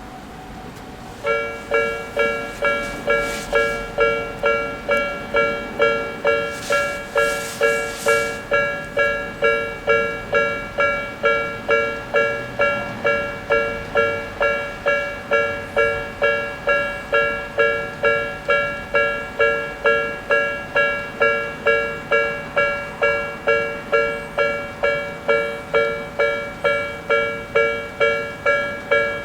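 Japanese railway crossing warning bell of the electronic 'Nikko type' starting about a second in and ringing about twice a second, each chime a cluster of tones that fades quickly. A couple of brief hissing noises sound around three and seven seconds in.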